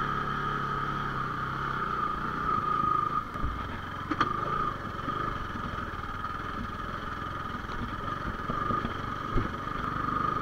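Bajaj Pulsar 220 motorcycle's single-cylinder engine running at low speed on a rough dirt track, with a single sharp knock about four seconds in.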